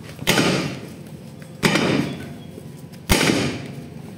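Hammer blows on the steel parts of a tank road-wheel assembly: three hard strikes about a second and a half apart, each ringing briefly before dying away.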